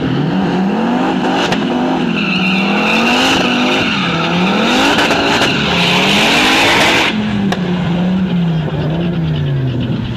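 A drag-racing car doing a burnout to heat its rear tyres before a run. The engine revs up and down again and again while the spinning rear tyres squeal from about two seconds in. The squeal cuts off suddenly about seven seconds in, and the engine drops to lower revs.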